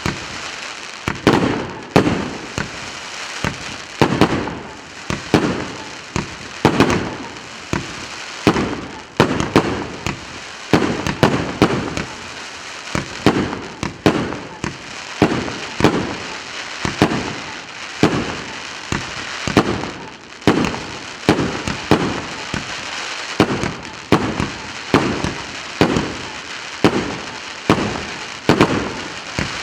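A 100-shot, 1.2-inch consumer firework cake firing in sequence: sharp shots about one to two a second, each with a deep thump, over a steady noise between shots.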